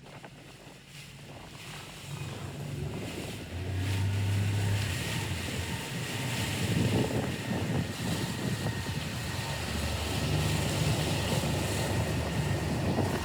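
Wind buffeting the microphone and water rushing past a moving boat in big waves, over a low steady engine hum. The sound grows louder a few seconds in.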